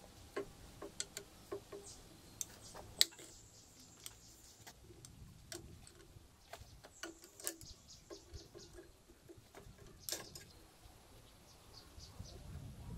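Irregular metal clicks and clinks of a hand tool against a rusty motorcycle's handlebar clamp and its bolts, some with a short ring; the sharpest comes about three seconds in.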